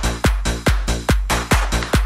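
Electronic bass-music track: a deep kick drum whose pitch drops on each hit, just over two beats a second, over long sustained sub-bass notes.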